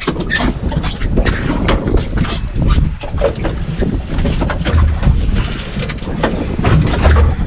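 Low rumble of the fishing boat with wind on the microphone, overlaid by many short knocks and clicks from a freshly caught fish being handled and unhooked on the boat's deck.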